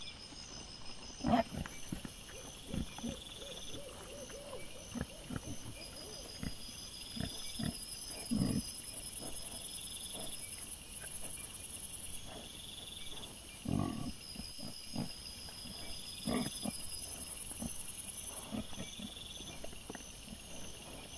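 Wild boar giving a handful of short grunts while rooting, over a steady high-pitched chirring background.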